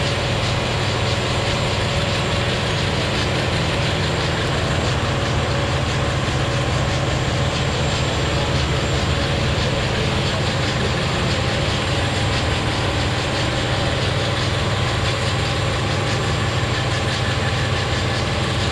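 Heavy truck diesel engine running loudly at a steady speed, with no revving up or down.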